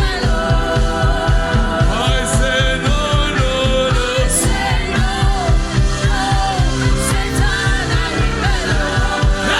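Gospel worship music with a steady low beat and singing over it.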